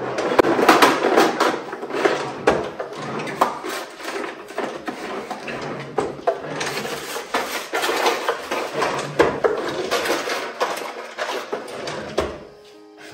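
Wooden chest of drawers being rummaged: drawers sliding open and shut with repeated knocks, and loose things inside clattering and rustling.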